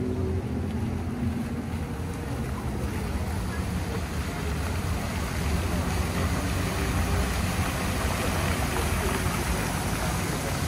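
Outdoor ornamental fountain splashing, a steady rushing of falling water that grows stronger a few seconds in, over a low rumble of street traffic.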